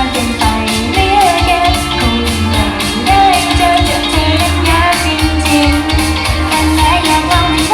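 Pop song with female singing over a steady beat, played loud through a stage sound system.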